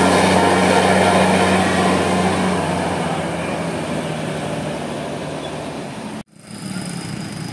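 Tour bus engine running and fading steadily as the bus moves away, its low hum dying out about three seconds in. The sound cuts off abruptly about six seconds in, and quieter engine and traffic noise comes back.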